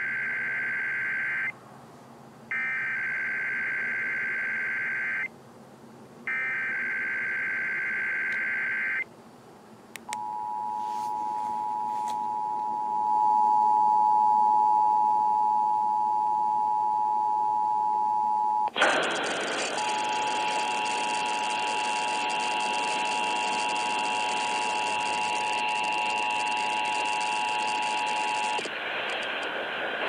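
Emergency Alert System Required Monthly Test received on an FM radio. It opens with three bursts of the SAME data header's warbling digital tones. About ten seconds in the steady two-tone attention signal begins, and a loud hiss joins it about nineteen seconds in.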